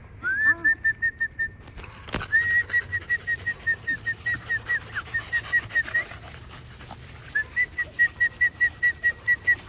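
A person whistling short, rapid notes at one high pitch, about five a second, in three runs, calling a litter of corgi puppies to come. A single sharp knock sounds about two seconds in.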